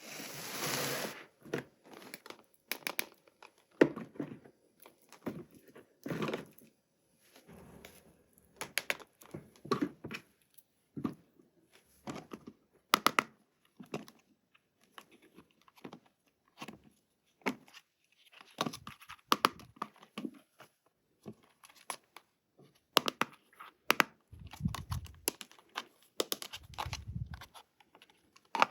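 Toy packaging being opened by hand: plastic and cardboard crinkling and tearing, with many sharp clicks and crackles, and two low thumps near the end.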